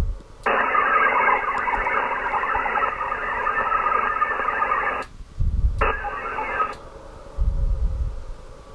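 VARA HF digital modem tones calling another station for a Winlink peer-to-peer connection. A dense, steady band of data tones lasts about four and a half seconds, then a second, shorter burst of about a second follows. Two brief low rumbles come between and after the bursts.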